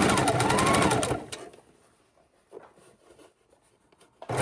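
Electric sewing machine stitching in a short burst, its motor whine rising and falling with the pedal, stopping about a second and a half in; after a pause it starts stitching again near the end.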